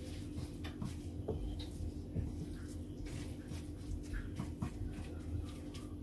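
Wooden spatula stirring chopped pumpkin leaves in a stainless steel electric frying pan: soft, irregular scraping and rustling, over a faint steady hum.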